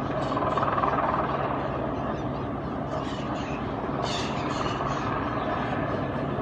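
Police helicopter's rotor and turbine giving a steady, continuous drone as it hovers and circles overhead.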